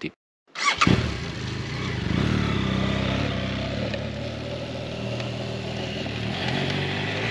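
BMW F800GS parallel-twin engine running steadily under way, over a steady rushing noise. It starts abruptly about half a second in.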